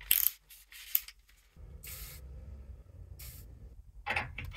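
Tool handling: two light clicks in the first second, then two short scraping hisses, as a cordless drill with a step drill bit is fitted and set against a steel bracket. The drill is not yet running.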